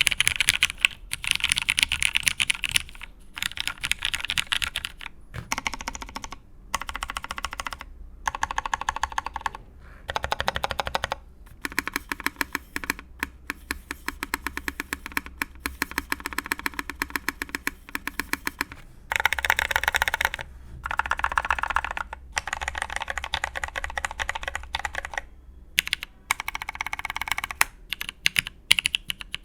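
Mechanical keyboard being typed on fast: a Matrix 8xv2.0 with lubed Cherry Nixie switches in an aluminium plate and Cherry keycaps. The keystrokes come in dense runs of clacks lasting a second or two, broken by short pauses.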